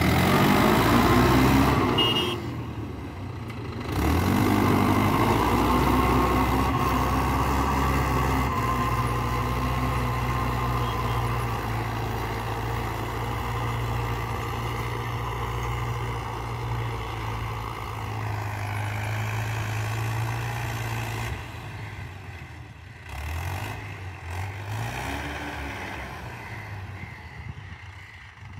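Mahindra 575 DI XP Plus tractor's four-cylinder diesel engine running steadily under load while it drives a rotavator tilling dry soil. It dips briefly a few seconds in, and the sound grows fainter over the last several seconds as the tractor pulls away.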